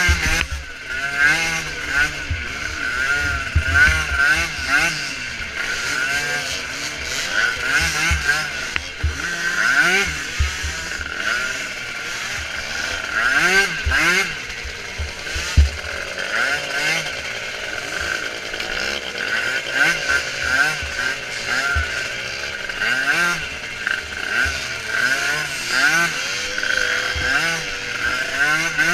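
Several small micro ATV engines racing, revving up and falling off again and again as the quads accelerate and back off, their pitches overlapping.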